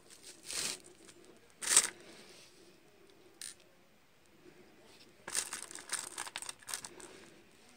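Hands handling small parts and a rag around a steel shaft of a KamAZ transfer case being assembled: scattered short rustles and light clicks. The loudest comes about two seconds in, then a quick run of them near the end.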